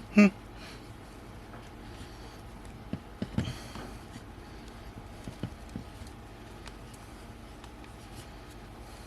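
A few faint, scattered clicks and taps of small parts and tools being handled while a camera zoom lens is worked apart, with a brief rustle about three and a half seconds in.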